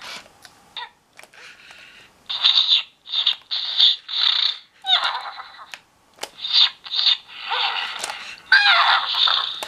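Zoomer Show Pony robot toy making electronic sound effects from its small speaker: a string of short chirpy bursts, with a recorded-sounding whinny about halfway through and again near the end. The toy's leg and head motors whirr and click as it moves.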